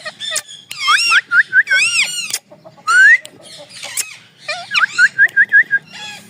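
Ringneck parrot calling: loud squawks that swoop up and down in pitch, a rising squeal about three seconds in, and quick runs of short repeated chirps.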